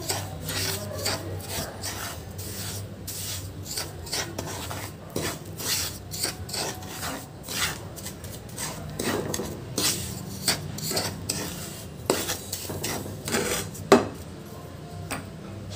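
A spoon stirring and scraping dry, ghee-roasted semolina and powdered sugar around a nonstick pan. It makes repeated gritty scrapes, a few a second, with one sharper knock against the pan near the end.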